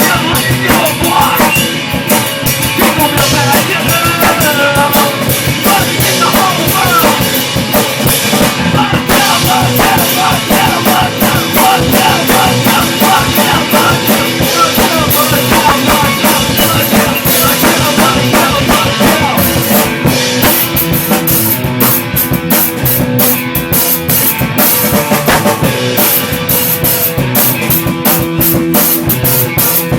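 Rock band playing a demo song, with a drum kit and bass drum driving a steady beat under the other instruments.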